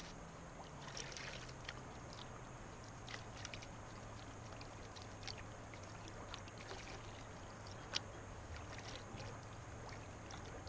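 A gold pan being swirled and dipped in river water, sloshing with scattered light splashes and trickles as material is washed off while a highbanker clean-out is panned down.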